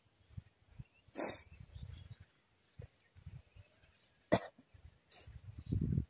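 Hands working a deeply swallowed hook out of a small tengra catfish: soft, irregular handling and rustling noises, with a short cough about a second in and a sharp click a little after four seconds.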